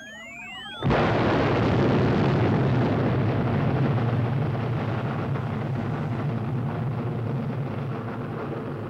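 Sliding electronic tones for about the first second, then an abrupt rocket-launch blast: a loud, steady rush of rocket exhaust noise, heaviest in the low end, that slowly fades as the rocket climbs away.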